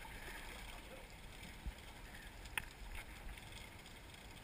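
Faint, steady ambience of a boat at sea, wind and water, with a single sharp click about two and a half seconds in.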